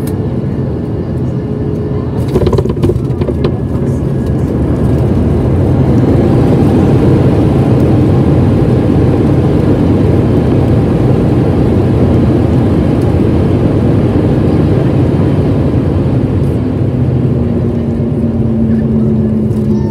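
Boeing 737-700 landing, heard from the cabin: a few knocks as the wheels touch down about two and a half seconds in, then the engines' roar building as reverse thrust is applied and staying loud through the rollout, easing off near the end as a steady low hum comes in.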